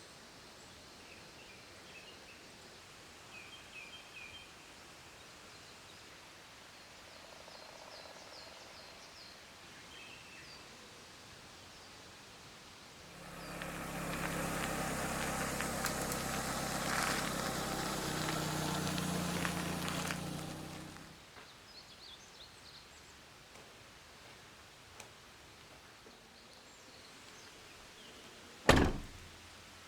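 Quiet outdoor ambience with a few faint chirps. Midway a low engine-like hum swells for about eight seconds, then fades away. Near the end comes a single loud thud.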